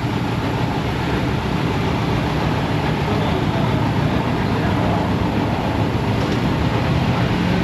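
Shop vehicle lift's hydraulic pump motor running steadily as it raises the car.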